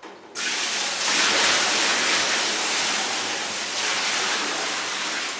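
Salt brine pouring from a plastic bucket into the brine tank of a stainless-steel commercial popsicle machine: a steady rush of splashing liquid that starts suddenly about half a second in.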